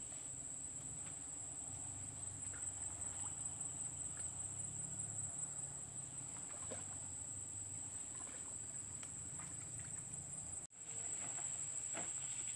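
A steady, high-pitched insect drone, with a faint low rumble and a few soft clicks and rustles beneath it.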